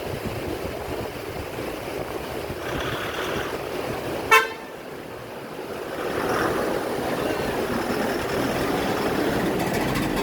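Mountain river water rushing steadily, the Yamuna in spate. About four seconds in, a single short vehicle horn toot cuts through, and the rushing grows louder about six seconds in.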